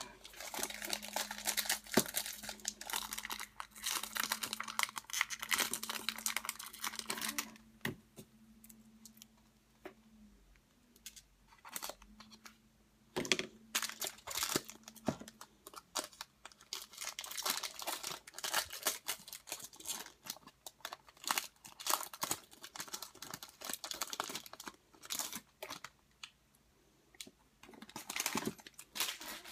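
Foil wrapper of a trading-card pack being torn open and crinkled for several seconds. After a quieter pause come scattered rustles and light clicks as the cards are handled and set down on a table.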